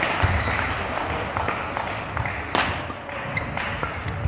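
Badminton rally: sharp racket hits on the shuttlecock, starting with a jump smash, with the loudest hit about two and a half seconds in.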